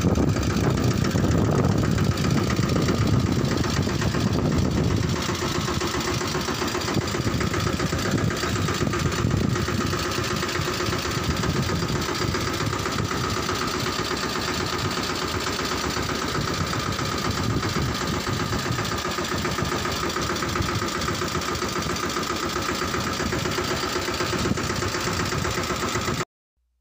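Tractor engine running steadily, louder for the first five seconds or so, then cutting off suddenly near the end.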